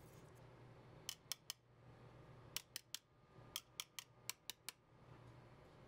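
Leaves of 1911 three-finger flat sear springs flicked by the fingers, snapping back with about a dozen sharp metallic clicks in three quick runs: three, three, then six.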